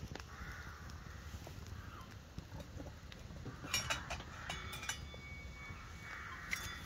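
Quiet outdoor background with a steady low rumble. A few light clicks come about four and six and a half seconds in, and a bird calls briefly about four seconds in.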